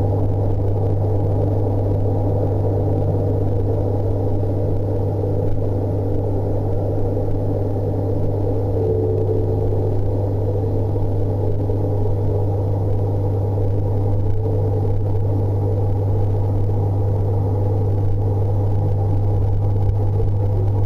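Aquarium pump running with a steady, loud, low hum and a rougher buzz above it.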